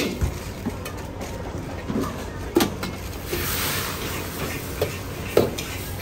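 Metal ladle knocking and scraping in a wok, several sharp clanks, with a short hiss of sizzling about three seconds in as liquid is ladled into the hot pan.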